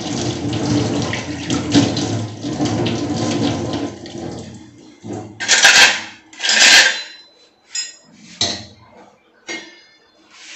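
Kitchen tap running into a sink for about four seconds, then two short loud splashes of water, followed by a few light knocks of pots and utensils on the counter.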